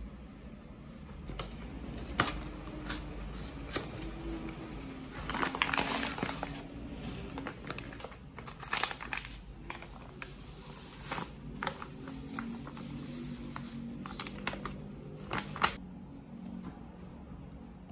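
Paper bag of cornbread mix crinkling and rustling as it is handled and the dry mix is poured into a glass mixing bowl, with irregular clicks and a few sharp taps near the end as a wire whisk goes into the bowl.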